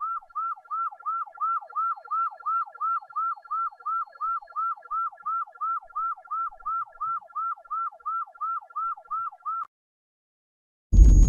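Electronic police siren in its fast yelp mode, the pitch sweeping up and down about three times a second; it cuts off suddenly about ten seconds in. A loud low rumble starts just before the end.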